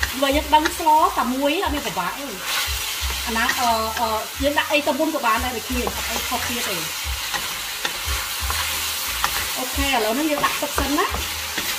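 Chicken and lemongrass sizzling in a hot wok, stirred and scraped round the pan with a wooden spatula.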